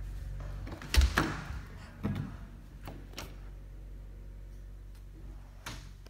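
A door being opened and shut: a loud thump about a second in, then a knock and a few lighter clicks, with a low hum fading out at the start.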